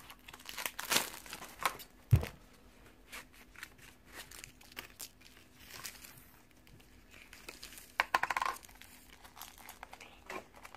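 Plastic toy blind bag being torn open and crinkled in the hands: irregular crackles and rustles, with a dull thump about two seconds in and a quick run of crinkling about eight seconds in.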